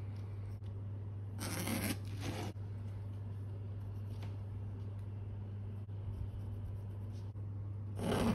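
Pencil scratching across canvas in two strokes: one about a second and a half in, lasting about a second, and a shorter one near the end. A steady low hum runs underneath.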